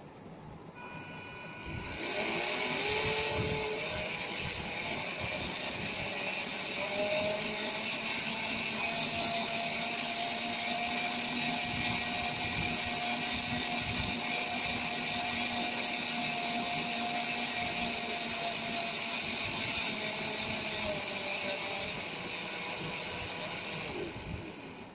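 Two small yellow plastic DC gear motors spinning their wheels under PWM speed control. A whine starts about two seconds in and rises in pitch as they speed up, holds steady at full speed, then falls and stops near the end as the speed is turned down.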